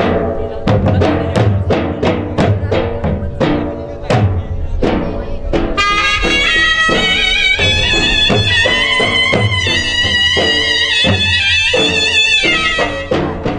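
Gujarati ras folk dance music: a steady, quick drum beat, joined about six seconds in by a bright, wavering wind-instrument melody that drops out near the end.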